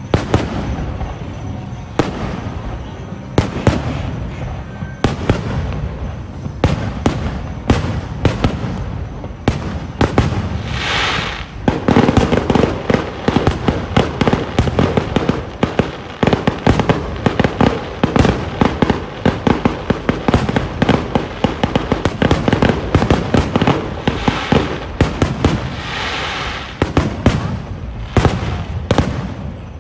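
Fireworks display: a rapid string of aerial shell bursts and bangs that thickens into a near-continuous barrage about twelve seconds in, with hissing crackle from crackling stars at times.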